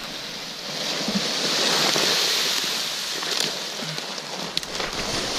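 Boots sliding and scuffing down a steep slope through deep dry leaf litter, a steady rustling hiss that swells from about a second in, with a few sharp twig clicks near the end.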